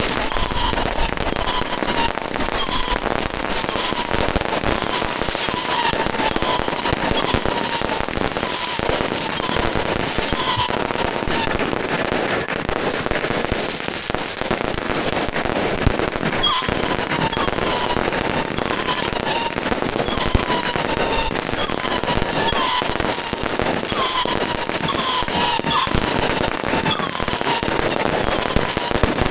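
Dense, continuous crackling of firecrackers and fireworks going off, with short falling whistles repeating about every second.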